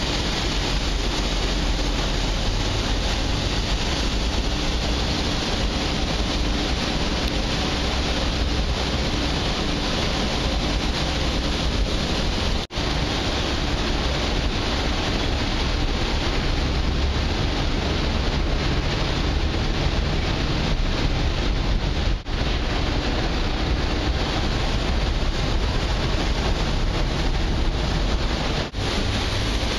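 Steady rumble of wind on the microphone and the ferry's engines on the open deck of a moving ship, strongest in the low bass. The sound drops out for an instant three times.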